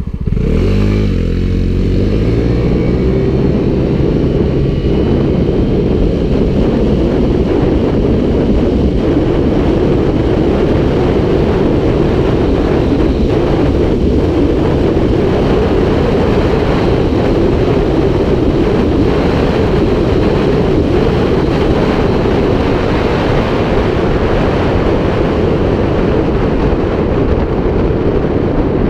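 Vespa GTS 300 hpe scooter's single-cylinder engine, through an Akrapovic exhaust, pulling hard from a standstill. Its note climbs in pitch over the first two or three seconds, then holds steady as the scooter gathers speed.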